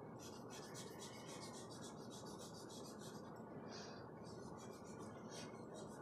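Charcoal scratching on drawing paper in quick, repeated back-and-forth strokes. The strokes come in two runs, with a short break a little past halfway.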